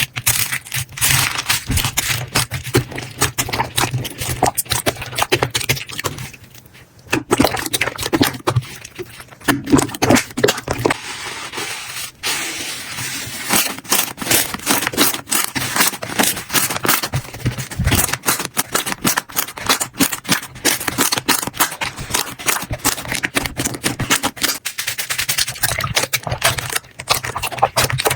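Hands squishing and poking slime: a dense, continuous run of crackles and pops with a couple of brief pauses.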